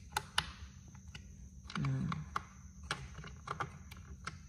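Scattered small clicks and taps from hand-tightening the bolts that fix a dining chair's seat to its frame, with a short murmur of voice about two seconds in.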